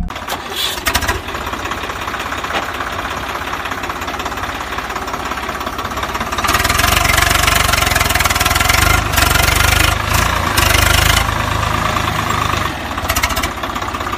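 Tractor engine running steadily with a rapid beat, growing louder about six and a half seconds in.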